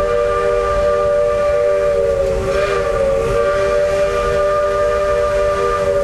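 Steam locomotive whistle blowing a steady multi-note chord without a break, wavering slightly in pitch about two and a half seconds in, over a hiss of steam.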